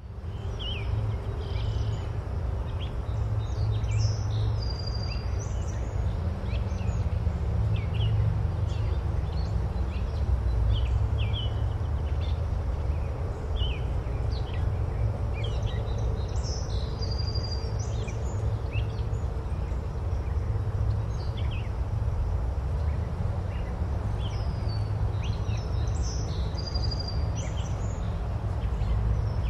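Many short bird chirps and calls over a steady low rumble of outdoor ambience.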